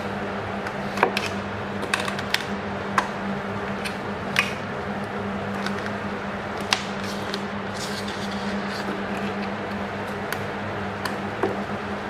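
Scattered sharp clicks and light taps of micro-USB plugs being pulled from a phone and a USB DAC and the devices handled on a table, over a steady low hum.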